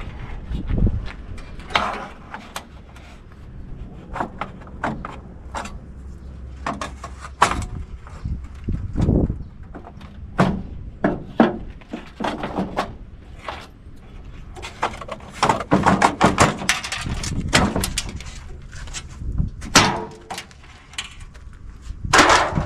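Irregular clanks, knocks and rattles of metal parts being handled and knocked about, as light fixtures and sheet metal are broken down for scrap.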